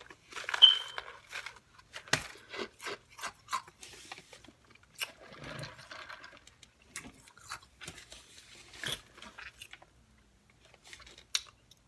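Close-up mouth sounds of eating: irregular sharp crunches mixed with softer chewing, going quiet for a moment near the end.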